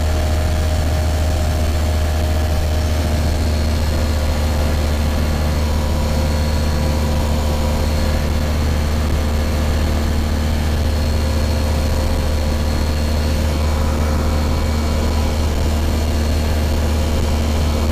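Hi-MAX ultralight's engine and propeller droning steadily in flight, heard from inside the cockpit, with a deep steady hum and a few constant tones above it.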